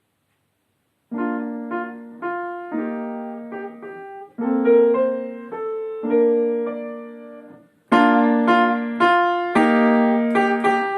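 Piano playing a short melody, starting about a second in: a first phrase played soft (piano), then, about eight seconds in, a second phrase played loud (forte).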